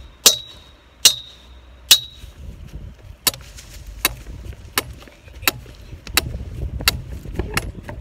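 A sledgehammer pounding a steel T-post into the ground, about ten blows. The first three, under a second apart, are the loudest and clang with a ringing note; the rest land more softly and without the ring, about every 0.7 s.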